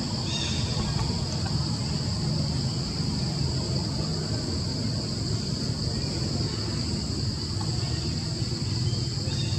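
Steady high-pitched drone of insects in the trees, over a continuous low rumble of background noise.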